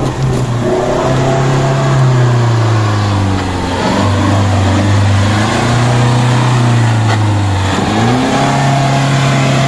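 Mahindra 4x4 jeep's engine revving under load off-road, its pitch rising and falling, with sharp drops in revs about four seconds in and again near eight seconds.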